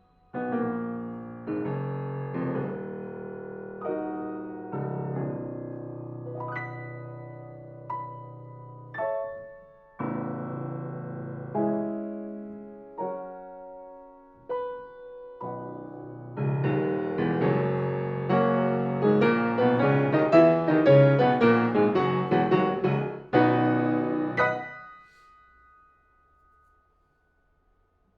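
Restored 1961 Broadwood baby grand piano being played: a series of struck chords left to ring and decay, then a louder, busier passage of rapid notes sweeping up and down the keyboard, closing on a final chord that dies away about three seconds before the end.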